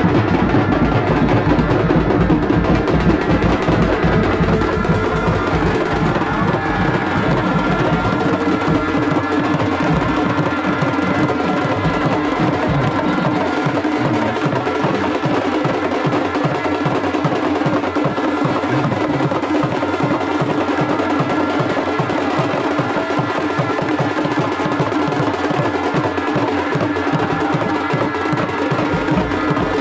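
Live wedding band music: a trumpet and a reed pipe play held melody notes over a quick, even drum beat. The drumming comes through more sharply from about ten seconds in.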